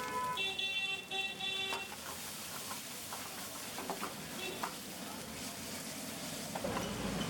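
Food sizzling in a hot pan with scattered clicks of utensils, and a vehicle horn honking twice in the first two seconds.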